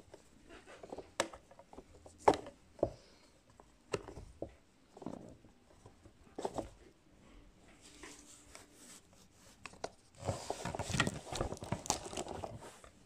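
Plastic shrink wrap on a Blu-ray case being picked at and torn open: scattered clicks and taps of fingers on the plastic case, then a few seconds of crinkling and tearing near the end.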